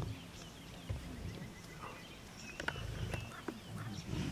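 Faint outdoor bush ambience: scattered bird chirps and a few sharp clicks over a low rumble.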